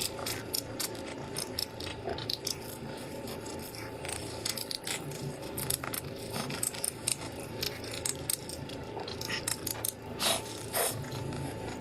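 Crispy fried chicken being bitten and chewed close up: many short, irregular crackles and crunches, over a faint steady hum.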